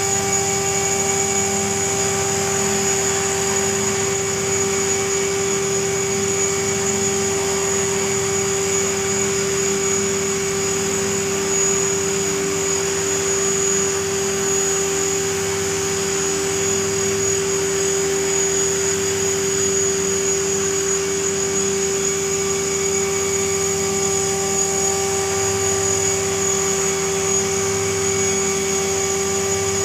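Align T-REX 500 electric RC helicopter hovering: a steady whine at one unchanging pitch over a constant whir.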